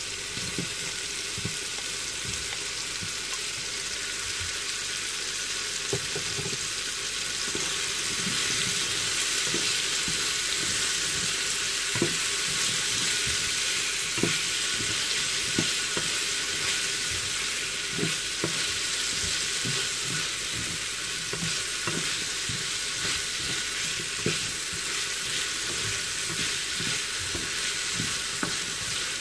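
Carrots and peppers sizzling as they sauté in a frying pan, with a spatula stirring them and knocking against the pan every second or two. The sizzle grows a little louder about a third of the way in.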